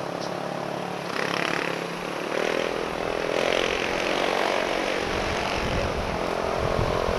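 Motorcycle engines running in dense traffic, a steady engine drone that grows slightly louder. In the last two seconds, wind buffets the helmet-mounted microphone as the bike picks up speed.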